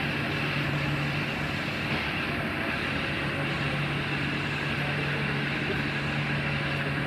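Heritage passenger train at a station platform: a steady low hum over an even rushing rumble.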